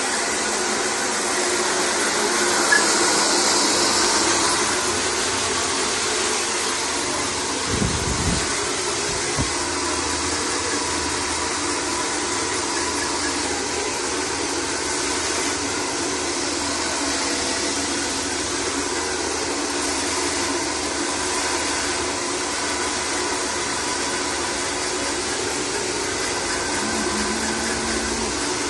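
Hand-held hair dryer blowing steadily, with two brief low thumps about eight and nine and a half seconds in.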